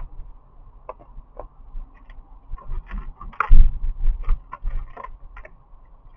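A cat eating from a plastic dish: irregular small clicks and smacks of chewing and licking, with a louder knock against the dish about three and a half seconds in.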